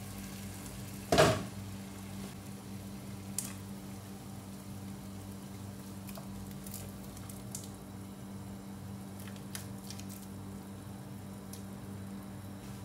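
Kitchen cooking sounds: a steady low hum, one loud knock about a second in, and a few light clicks.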